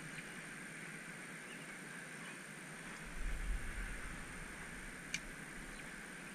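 Steady rush of river water flowing past the bank, with a brief low rumble about three seconds in and a single sharp click about five seconds in.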